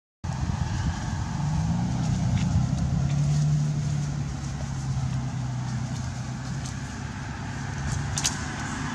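A motor vehicle's engine hum that rises about a second and a half in, holds steady for several seconds and then fades, over a constant outdoor hiss.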